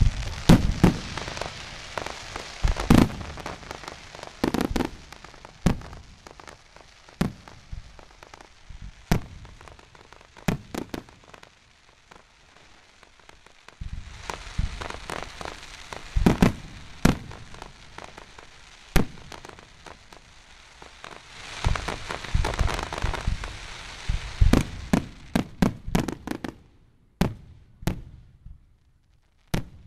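Aerial fireworks display: shells bursting in a string of sharp, irregularly spaced bangs, with stretches of dense crackle between them. A quick run of reports comes near the end, followed by a short lull.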